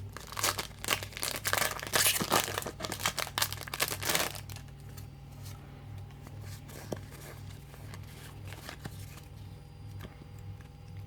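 Foil booster pack wrapper being torn open and crinkled for about the first four seconds, then only faint handling clicks over a low hum.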